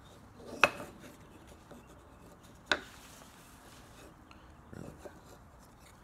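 A thin wooden slide blank and a small wooden box knocking together twice, with sharp clicks about two seconds apart, and faint rubbing as the pieces are handled.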